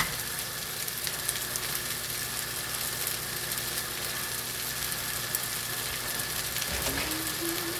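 Shrimp and chicken fried rice sizzling steadily in a frying pan.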